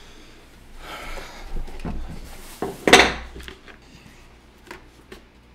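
Rustling of a helmet's padded liner being handled, then a loud sharp clatter about three seconds in and a few light clicks as helmet parts are moved about on a wooden table.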